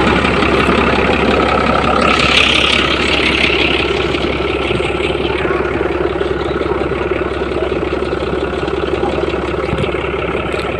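Engine of a 6x6 military truck running steadily close by, with a brief hiss about two seconds in.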